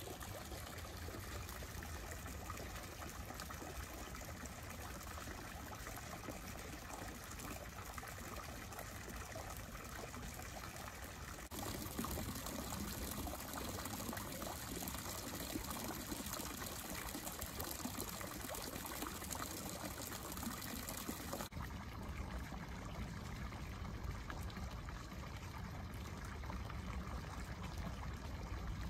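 Water trickling and running into a pond, a steady splashing hiss. It grows louder about twelve seconds in and loses some of its high hiss about twenty-one seconds in.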